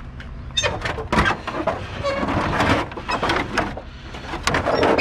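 Pieces of scrap metal clattering and knocking as they are handled, in a quick irregular run from about half a second in, over a vehicle engine idling.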